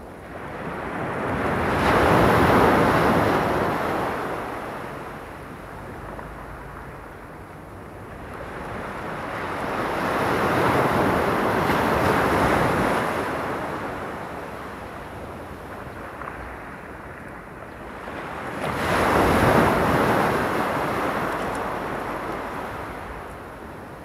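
Small sea waves breaking and washing up a stony beach, three in turn, each surge of surf rising and fading over several seconds with a quieter wash between.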